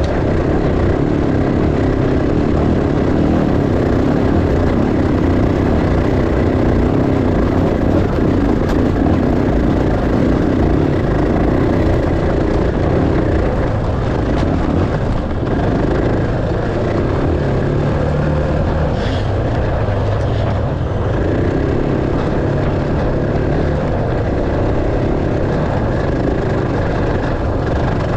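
Enduro dirt bike engine running steadily and loudly as the bike is ridden, with the revs shifting somewhat.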